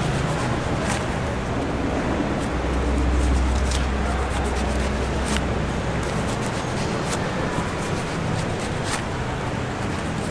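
Curved knife cutting through the fibrous flesh of a halved jackfruit, a short sharp click every second or two, over steady market background noise. A low rumble swells and fades in the middle.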